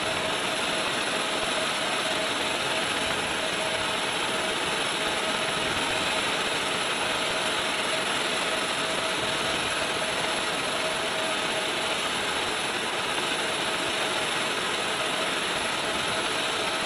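Steady turbine noise with a constant whine, unchanging throughout, from a jet turbine running on an airfield flight line.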